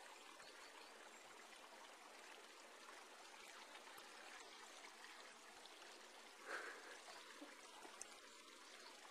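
Near silence: a faint, steady hiss of room tone, with one brief soft swell about six and a half seconds in.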